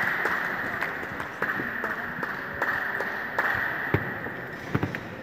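Audience applause dying away, with a few scattered single claps standing out near the end.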